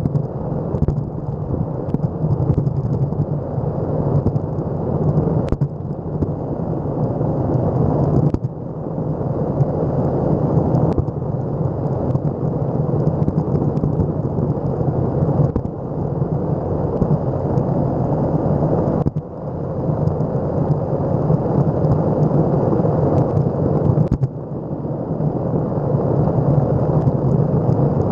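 Electric skateboard rolling fast over rough, cracked asphalt: a steady low road rumble from the wheels, picked up close by the board-mounted camera. It dips briefly a few times.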